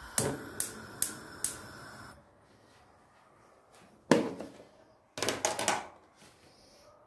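Kitchen utensils and dishes clattering: a few sharp clinks over a brief rushing noise at the start, a single knock about four seconds in, and a quick run of clicks and clatters a second later.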